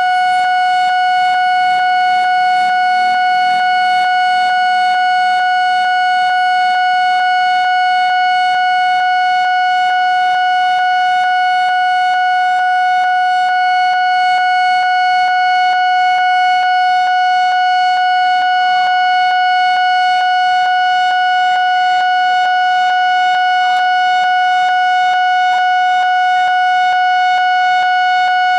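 Railway level-crossing warning alarm sounding a steady, unbroken high electronic tone, warning road traffic of an approaching train.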